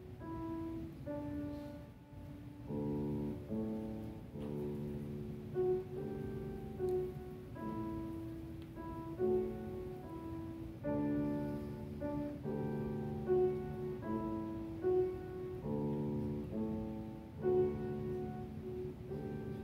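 Piano playing a slow piece of held chords that change every second or two, with a melody line above them.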